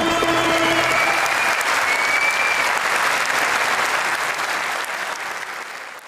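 Studio audience applauding as the performer's held final sung note dies away in the first second; the applause fades out near the end.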